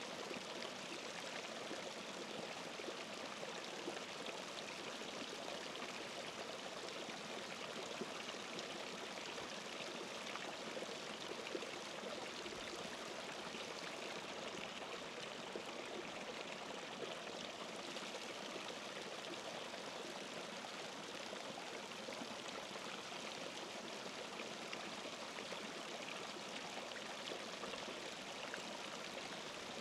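Running water, a steady rushing sound like a stream.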